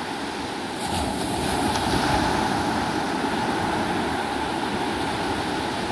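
Sea waves washing on the shore: a steady rush of surf that swells about a second in and keeps going.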